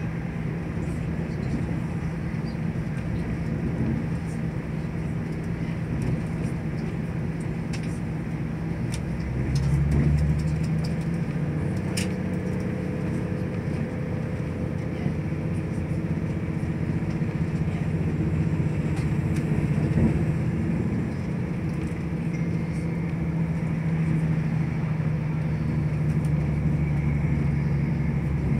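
Diesel passenger train running, heard from inside the carriage: a steady rumble with a low engine hum that swells briefly about ten seconds in, and a few sharp clicks from the running gear.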